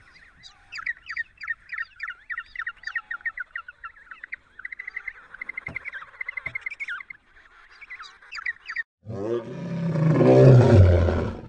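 Small birds chirping in quick, repeated high notes. About nine seconds in, a deep animal roar starts, swells to the loudest sound and then stops.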